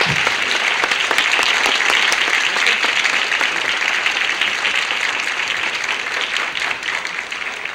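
Studio audience applauding: dense, steady clapping that eases off slightly toward the end.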